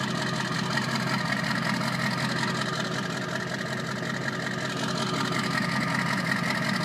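1997 Ford Power Stroke 7.3-litre V8 turbo-diesel idling steadily with an even, fast pulsing, still warming up from a cold start made without the block heater plugged in.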